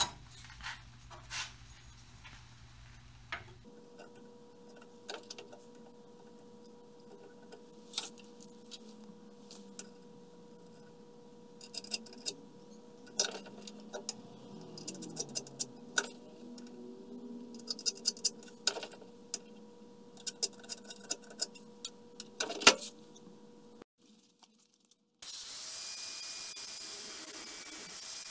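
Scattered small metal clicks and taps as steel tools are handled and laid against a steel part held in a vise, with one louder knock. Near the end an angle grinder cuts in and runs steadily, a hiss with a faint whine, as it grinds the steel part and throws sparks.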